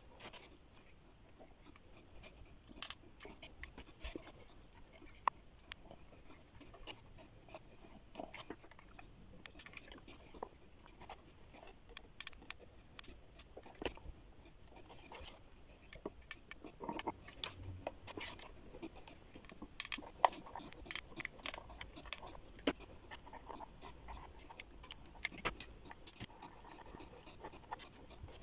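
Hands handling a box of wooden ice-cream sticks and wrapping jute twine around it: scattered light taps, clicks and rustles, with a sharper click about twenty seconds in.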